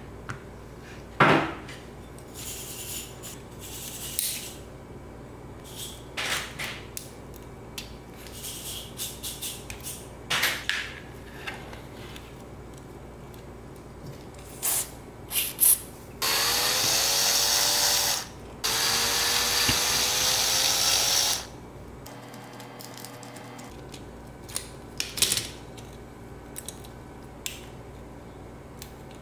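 A small electric screwdriver runs in two bursts, about two and three seconds long, its motor pitch rising slightly in each, undoing the screws in the base of a die-cast model car. Around the bursts come light clicks and taps of the model's metal and plastic parts being handled.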